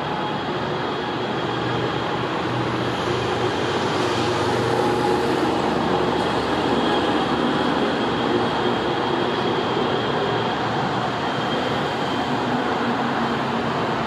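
Steady rumble of distant vehicle traffic that swells through the middle and eases off again, with faint high ringing tones over it.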